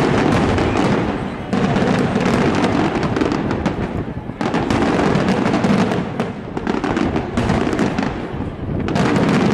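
Aerial fireworks display: shells bursting overhead in a dense barrage of rapid bangs and crackling, with fresh loud volleys starting about one and a half, four and a half and nine seconds in.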